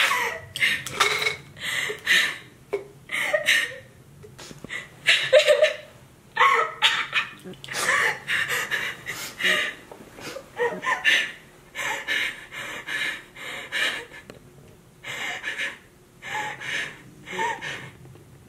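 A girl crying: a run of heavy, uneven breaths and gasps, one every half second to a second, with short pauses between.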